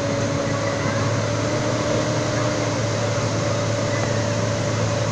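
Police water cannon truck spraying its wide 'water wall' pattern: a steady hiss of water under the even hum of its pump engine running at constant speed.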